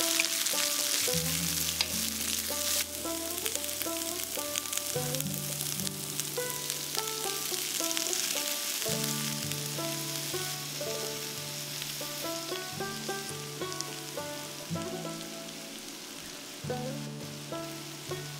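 Shredded cabbage, capsicum and green chillies sizzling as they are stir-fried in a hot wok, with a wooden spatula scraping and ticking against the metal; the sizzle eases about halfway through. Light plucked background music plays over it.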